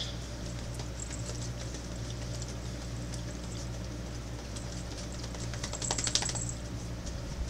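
Small clicks and rustles of people chewing and handling gummy candies over a steady low room hum, with a short flurry of rapid crinkly clicks about six seconds in.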